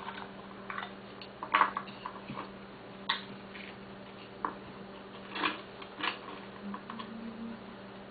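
Two oysters being opened: the shells click and knock sharply several times while they are handled and pried apart, over a steady low hum.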